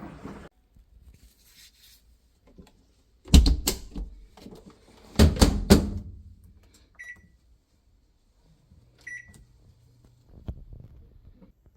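Kitchen handling noise: two clusters of sharp knocks and clatters, followed by two short high electronic beeps from a kitchen appliance a couple of seconds apart.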